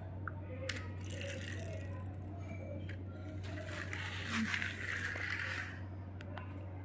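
Small plastic toy crane truck rolling across a stone floor after a push: a faint rolling scrape with a light click or two near the start, over a steady low hum.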